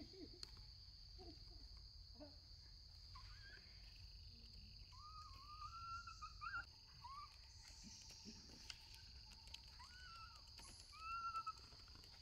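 Insects droning steadily in a high whine, with a few short rising-and-falling calls from about five seconds in.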